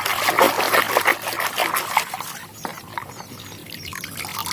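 Water splashing and sloshing as a muddy toy is rinsed and scrubbed by hand, in irregular bursts that thin out after about two seconds.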